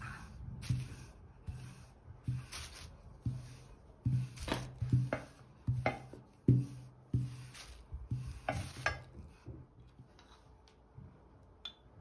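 Wooden rolling pin rolling dough back and forth on a glass tabletop: repeated rumbling strokes with sharp knocks in between. The strokes stop about ten seconds in, and there is a single light click near the end.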